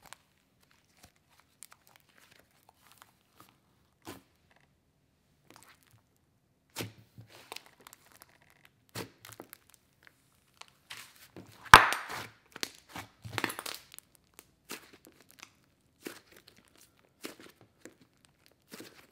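Thick yellow buttercream slime (cloud-cream slime mixed with clay) being stretched, folded and pressed by hand, giving scattered small sticky pops and clicks. A little past halfway comes a denser run of louder pops, the loudest a single sharp snap.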